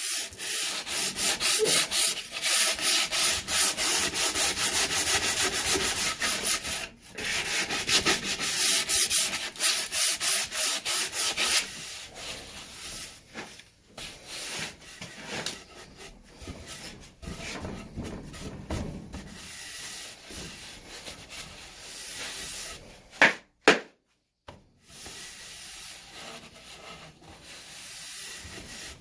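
60-grit sandpaper rubbed back and forth along a wooden axe handle, stripping off its slippery factory finish. Quick, even strokes run louder through the first half, then lighter. A couple of brief louder knocks come near the end.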